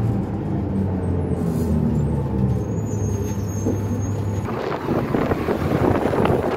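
The Cummins ISL straight-six diesel of a 2005 New Flyer D40LF transit bus running with a steady low hum, heard on board. About four and a half seconds in, a loud rushing noise rises over it.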